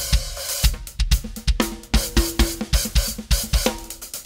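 Drum kit played in a fast groove: kick drum, snare and cymbal hits, with a pair of 14-inch Meinl Byzance Vintage Equilibrium hi-hats up front. The playing stops right at the end.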